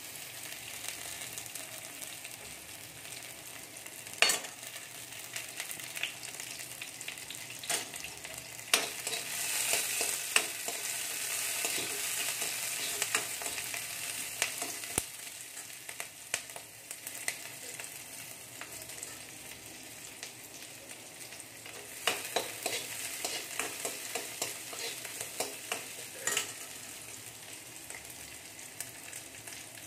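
Chopped onion and green capsicum sizzling in hot oil in a metal kadai, stirred with a steel spoon that clicks and scrapes against the pan now and then. The sizzle swells for a few seconds about a third of the way in.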